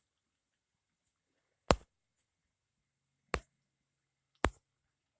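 Three sharp single clicks, the first about two seconds in, the next past three seconds, the last near the end, with near silence between.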